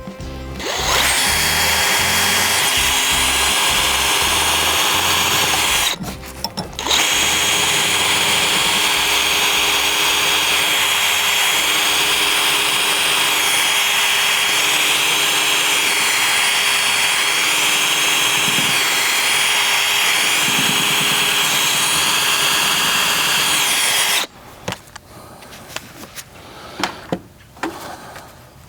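Electric drill boring a pilot hole for a lag bolt through a wooden door, running steadily for over twenty seconds with a brief stop about six seconds in, its pitch wavering under load. The bit may have struck a screw inside the door.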